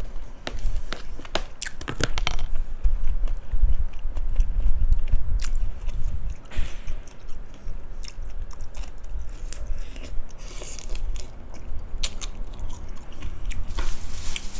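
Close-miked chewing of spicy cucumber salad with crispy pork cracklings, with sharp crunches coming in clusters, densest in the first couple of seconds.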